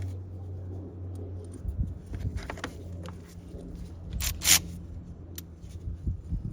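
Scrapes and clicks of the plastic engine air box cover and its fasteners being handled and refitted, with two louder scraping rustles, one about two and a half seconds in and one just after four seconds. A low steady hum fades out in the first couple of seconds.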